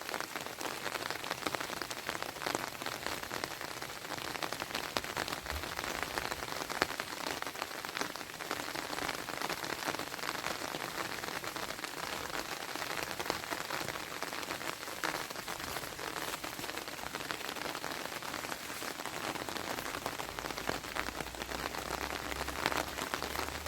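Steady rain falling, with a dense patter of separate drops tapping throughout.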